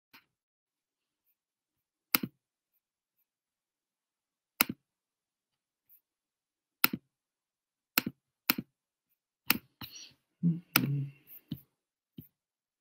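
Sharp single computer clicks, about seven of them, spaced irregularly one to two seconds apart and coming closer together near the end, with a brief low-pitched sound among the last ones.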